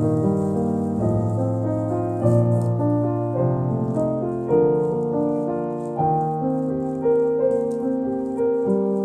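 Background piano music, slow and gentle, with overlapping held notes. Faint soft ticks sit underneath.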